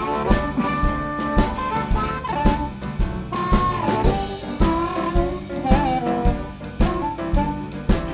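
Live band music: horns playing held and sliding notes over a steady drum beat, an instrumental passage with no singing.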